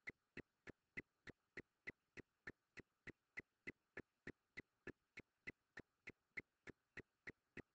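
Faint, evenly spaced ticking clicks, about three a second, over near silence.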